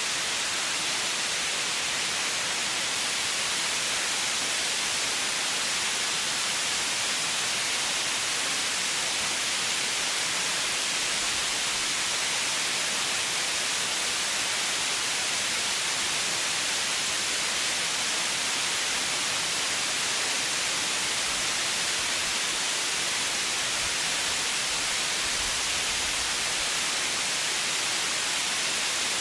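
Steady white noise: an even, unchanging hiss, brightest in the upper range, with no tones or breaks.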